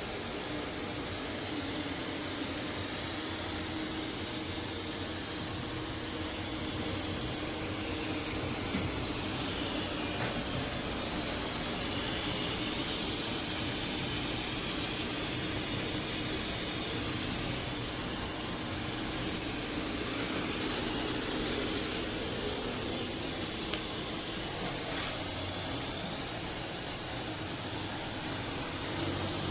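eufy S1 robot vacuum and mop running under suction: a steady whir with a low hum and a high motor whine that drifts up and down in pitch.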